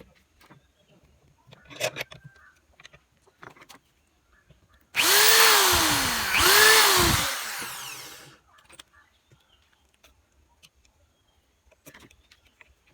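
Electric drill driving screws: two short runs about five seconds in, each one speeding up and then slowing down, with light handling clicks and taps around them.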